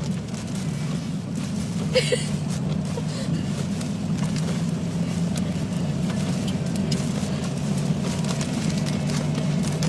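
Steady low rumble inside a pickup truck's cab, the engine and road noise of the moving truck, with scattered light ticks.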